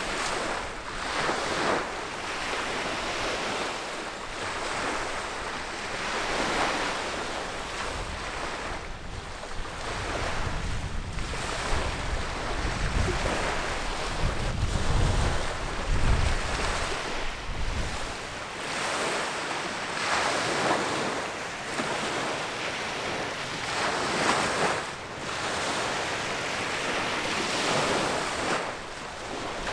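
Wind gusting across the microphone, with water washing against the shore; the gusts swell and ease every few seconds, and heavy low buffeting comes in from about ten to eighteen seconds in.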